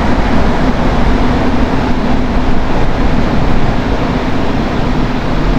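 Rubber-tyred Montreal Metro train running, heard from inside the car: a loud, steady rumble with a low hum that fades about a second in.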